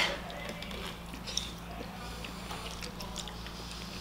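Faint eating mouth sounds of two people slurping and chewing very chewy noodles: small wet slurps and chews, with one sharp click about a second and a half in.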